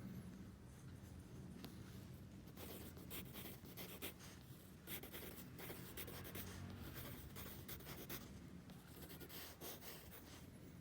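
Faint scratching of a pen drawing lines of a wiring diagram, in many short strokes that begin a couple of seconds in, over a low steady room hum.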